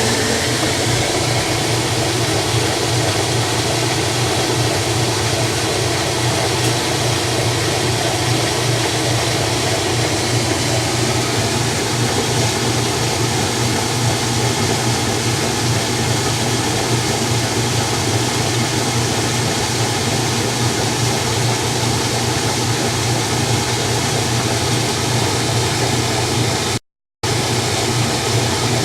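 Washing machine running with its cabinet off: a loud, steady motor hum under a constant mechanical whir. The sound cuts out for a split second near the end.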